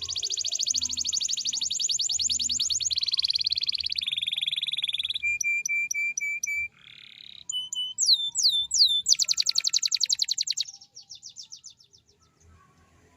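Domestic canary singing a long song of fast trilled rolls. It switches between a high trill, a lower trill, a run of about six clear repeated notes, and a few down-slurred whistles. A last fast trill thins out and stops near the end.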